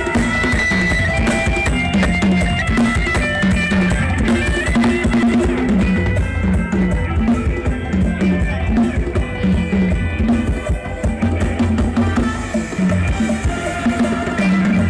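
Music with a drum kit and heavy bass keeping a steady beat, played loud through a large outdoor PA system of stacked loudspeaker and subwoofer cabinets for a sound-system test.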